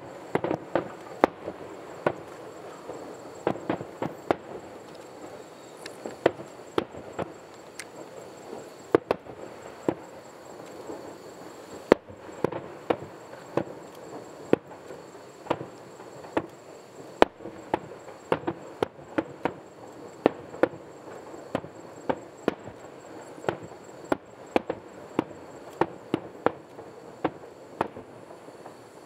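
Aerial fireworks display: dozens of shell bursts going off in quick, irregular succession, sharp bangs of varied loudness, sometimes several in a second, over a continuous background rumble.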